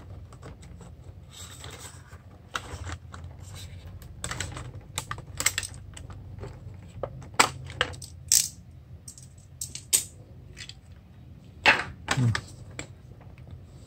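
Stiff plastic blister pack being cut open with a blade and pried off its cardboard card: irregular crackles, clicks and snaps of the plastic, a few louder snaps in the second half.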